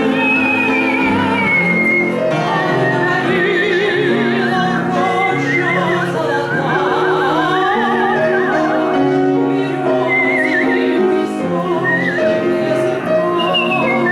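A woman sings a Russian romance in an operatic style with piano accompaniment. A high, wavering whistled line with wide vibrato weaves above the voice and piano.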